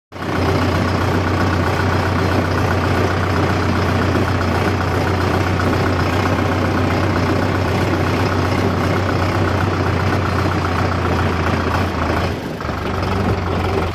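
Engine of corn-harvesting farm machinery running steadily at constant speed, with a brief dip in level about twelve and a half seconds in.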